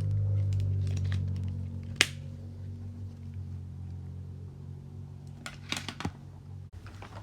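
Small plastic fidget toys being handled, with one sharp click about two seconds in and a quick cluster of clicks near the end, over a low steady hum that weakens after about two seconds.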